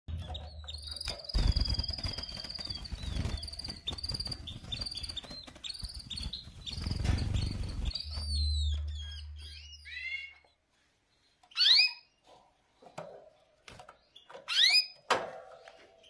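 Canaries calling in a cage: a fast run of high, repeated chirps over wing flapping and rustling during the first half, then a few falling chirps. Two loud rising calls follow in the second half, a few seconds apart.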